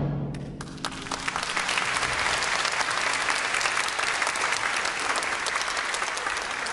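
The wind band's final chord fades into the hall's reverberation, and within the first second the audience breaks into steady applause that fills the hall.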